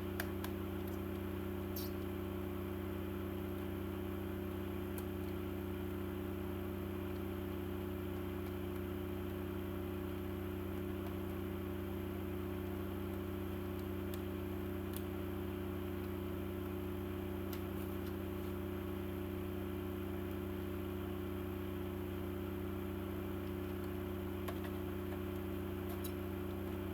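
A steady low hum made of several unchanging tones, with a faint hiss and a few faint clicks now and then.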